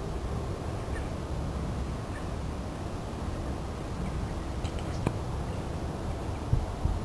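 Wind rumbling on the microphone, with a Jack Russell terrier snuffling with its nose in a hole in sandy soil. There is a single sharp click about five seconds in.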